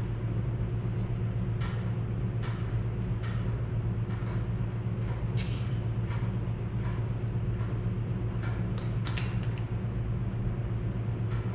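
Slow metal clicks, about one a second, from hand work on the cylinder head of a Farmall Super C engine during head removal, with a brighter metallic clink about nine seconds in. Under it runs a steady low hum.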